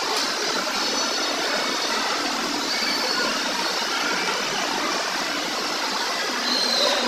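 Steady ambient hubbub of a crowded mall concourse: many blended, indistinct voices and general noise echoing in a large hard-surfaced hall, with a few faint high-pitched sounds from children.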